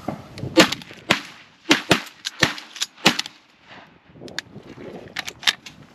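Shotguns from several hunters firing a quick volley at an incoming duck: about seven sharp shots in the first three seconds, then a few fainter cracks near the end.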